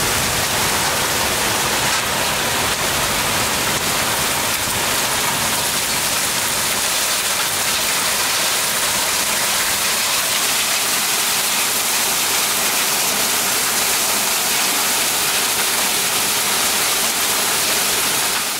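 Heavy rain pouring steadily, an even dense hiss with no letup.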